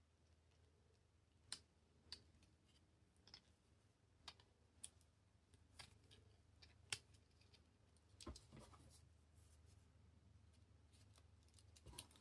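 Victorinox Spartan Swiss Army knife handled in a quiet room: about a dozen short, sharp metallic clicks at irregular intervals, typical of its blades and tools being opened and snapped shut.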